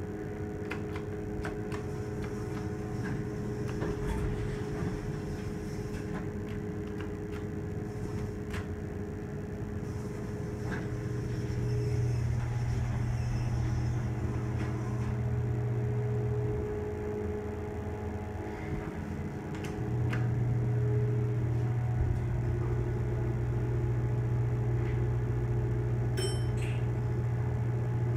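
Hotel passenger elevator running as the car travels between floors, heard inside the cab as a steady low hum with a few steady tones over it. The hum grows louder about twelve seconds in, eases off for a few seconds, then comes back louder, and there are scattered light clicks and a short high beep near the end.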